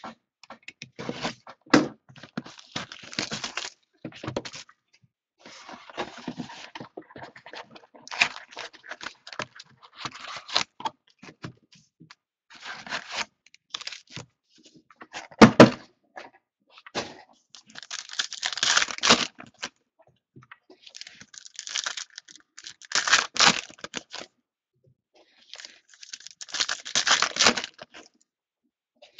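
Hands opening a cardboard box of football trading cards and handling its foil-wrapped packs: cardboard scraping, foil wrappers crinkling and tearing, in bursts with short gaps. A sharp thump about halfway through.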